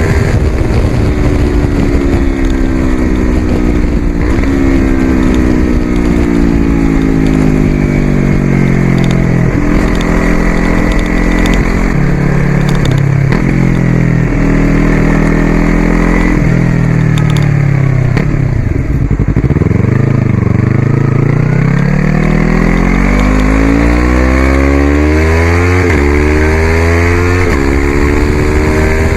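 Yamaha YZF-R3's parallel-twin engine through an aftermarket Coffman's exhaust, slowing for about twenty seconds with several downshifts that each kick the revs back up. It then accelerates with rising revs, shifting up a few times near the end with brief quickshifter cuts.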